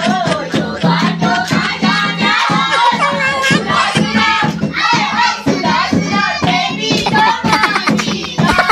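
Voices singing a folk song together to a fast, steady beat on a dholak barrel drum, with hands clapping along.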